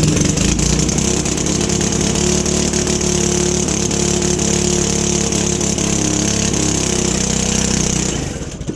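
Motorbike engine held at steady high revs during a burnout, with a hiss over it, then dropping off about eight seconds in.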